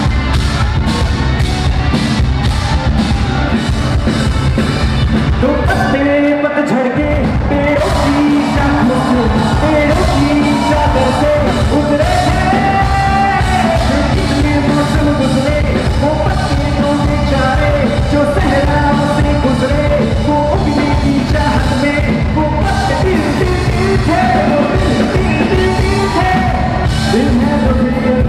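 A song performed live through a loud PA, with a singer over a strong beat and bass and a crowd yelling along. The bass drops out briefly about six seconds in.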